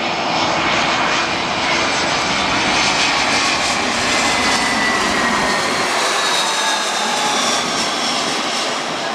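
Airbus A321 jet airliner passing low overhead on final approach, gear down: loud jet engine noise with whining tones that fall steadily in pitch as it goes by, easing a little near the end.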